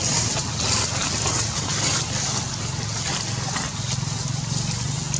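Steady outdoor background noise: an even hiss with a low hum underneath, and no distinct calls or impacts.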